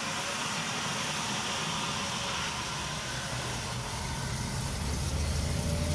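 Steady hiss from the departing model steam train's sound effects, joined in the second half by a low engine hum that grows louder.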